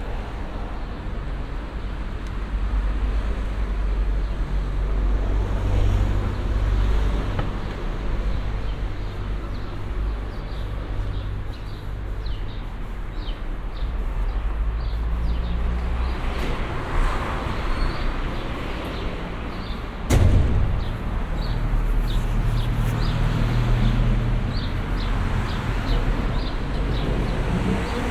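Road traffic on a city street: cars passing with a steady low rumble of engines and tyres, swelling as vehicles go by, and one sharp thump about twenty seconds in.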